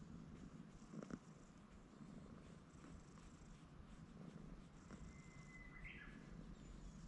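Brown tabby cat purring quietly as it is stroked on the head.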